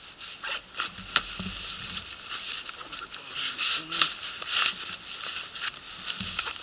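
Nylon fabric of an Osprey Volt 75 backpack rustling and rubbing as the pack is handled and an item is stuffed into its top, with a couple of sharp clicks about a second in and about four seconds in.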